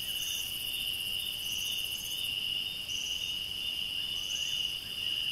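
Night insect chorus in the African bush: a steady shrill trill. A shorter, higher chirp repeats about every second and a half over it.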